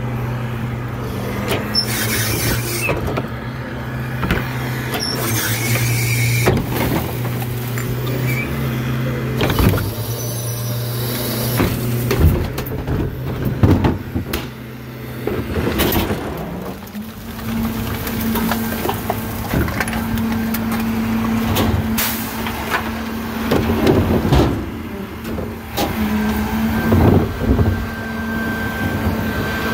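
Rear-loading garbage truck's engine and hydraulics running as its cart tipper lifts a wheeled plastic trash cart, dumps it into the hopper and lowers it again, with repeated knocks and clanks of the cart against the tipper and some squeals.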